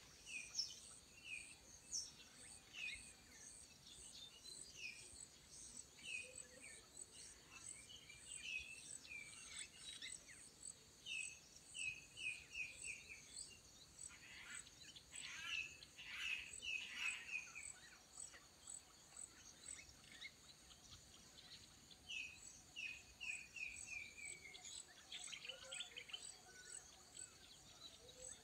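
Faint birdsong: short chirping notes, several times in quick runs that fall in pitch, with a louder spell of calling in the middle. Under it runs a steady high insect trill with a regular pulse.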